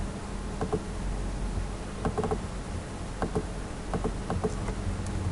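Computer mouse and keyboard clicks, singly and in quick runs of two to four, over a steady low electrical hum.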